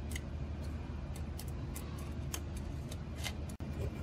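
Scattered small metallic clicks and scrapes from a hand-turned thread chaser being worked into a bolt hole in a flathead engine's head to clear out leftover bolt thread, over a steady low hum.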